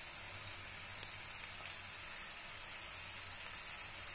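Sliced shallots and coconut pieces frying in coconut oil in a kadai: a steady, low sizzle.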